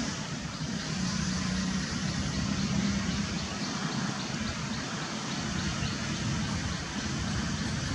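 Steady low rumble with a hum, typical of motor traffic running nearby. Faint high ticks come about twice a second through the middle.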